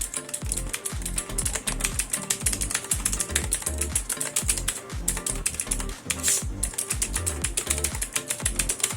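Fast typing on an Aula F2088 mechanical keyboard: a dense, irregular run of crisp, clacky keystrokes, typewriter-like, over background music with a steady bass line.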